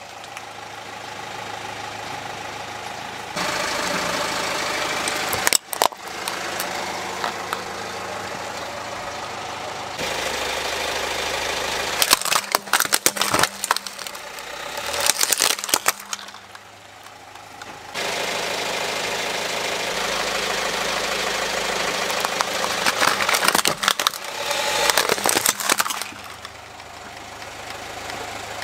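A car's engine idling while its tyre rolls over and crushes hard plastic toys, with several bursts of cracking and crunching plastic, around the middle and again near the end.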